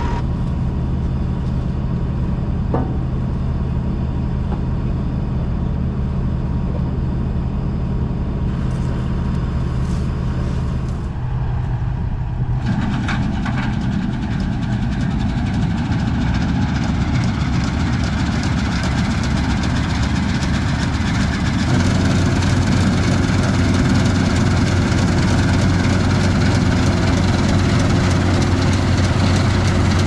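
Large diesel farm machine engine running steadily, its note changing about twelve seconds in and growing louder about twenty-two seconds in.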